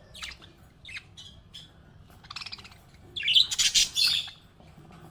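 Small pet parrot calling: a few short high chirps, then a buzzy call and, about three seconds in, a louder run of harsh, scratchy calls.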